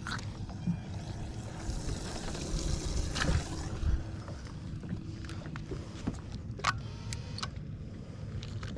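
Small fishing boat on the water: a steady low rumble with a faint steady hum, a brief hiss a couple of seconds in, and a few short sharp knocks and clicks from gear being handled on board.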